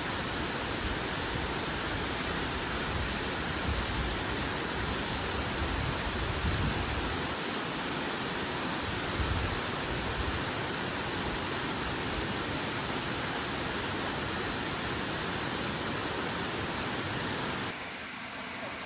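Nachi Falls' water falling and splashing: a steady, dense rush. Near the end it cuts abruptly to a quieter hiss.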